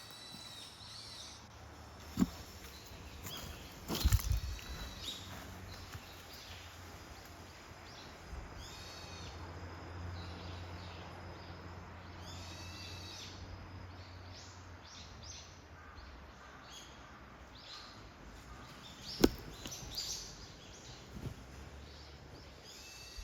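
A wild bird calling in short repeated phrases, with a few sharp knocks in between, the loudest about four seconds in and again near the end.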